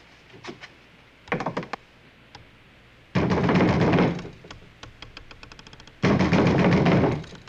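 Fists pounding on a wooden cabin door: a few light knocks, then two loud bouts of hammering, each about a second long, about three seconds apart.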